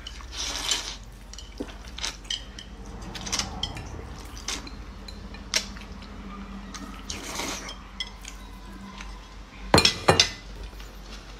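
Chopsticks clicking against ceramic plates and bowls while noodles and boiled eggs are eaten, with a few short stretches of slurping. Near the end, two loud knocks of crockery, a plate being set down on the table.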